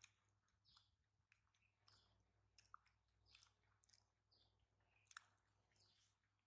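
Near silence: faint scattered clicks and crackles over a low steady hum.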